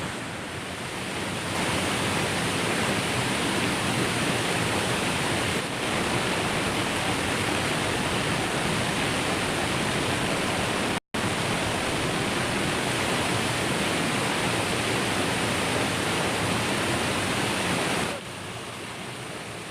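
Waterfall rushing: a steady wash of falling water. It cuts out for an instant about halfway through and drops noticeably quieter near the end.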